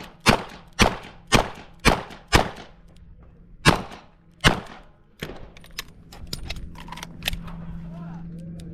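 Smith & Wesson 929 revolver firing .38 Short Colt in rapid fire: five shots about half a second apart, a short pause, then two more. After a weaker report, a few seconds of light clicks and rattles follow with no shots.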